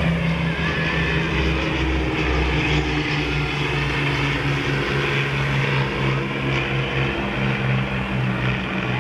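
Propeller-driven aircraft's piston engine running steadily, a low pitched tone with its overtones and a slight pulsing.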